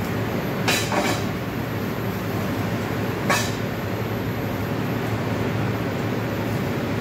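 Steady roar of a commercial gas range's burners and extractor hood, with sharp metal clinks of tongs against a sauté pan: two about a second in and one more a little after three seconds.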